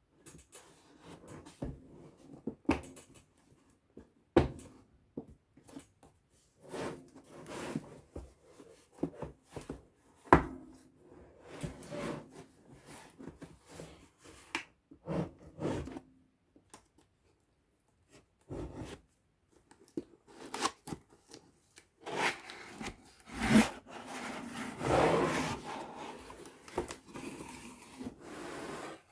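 Handling of a small laptop: scattered clicks and light knocks with rubbing and rustling between them, then a longer spell of rustling and rubbing near the end.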